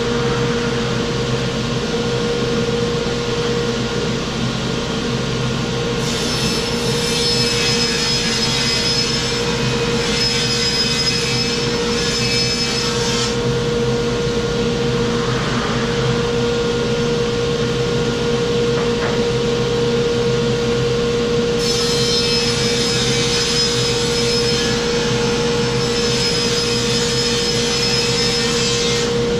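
Table saw running with a steady motor hum and cutting through plywood twice, each cut a harsh rasp of about seven seconds, the first starting about six seconds in and the second a little past twenty.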